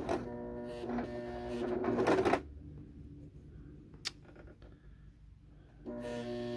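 Electric sewing machine running as it zigzag-stitches coiled cotton rope, with a steady hum and needle clatter for about two and a half seconds before stopping. A single click comes about four seconds in, and the machine starts running again near the end.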